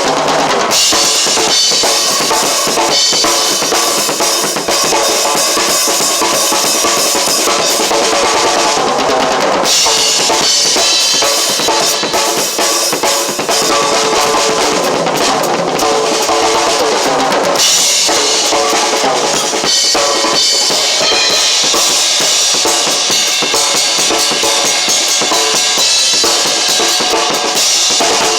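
Drum kit played continuously, with kick drum, snare and cymbal hits, alongside music.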